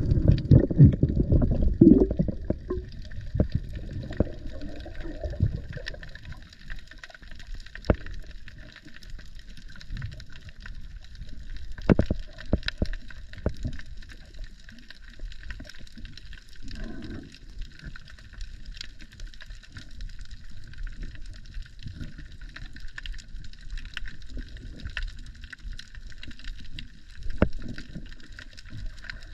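Underwater sound of a night dive. About the first three seconds are loud, muffled bubbling and sloshing as the diver goes under. After that comes a steady low underwater hiss with scattered sharp clicks and an occasional burst of bubbles.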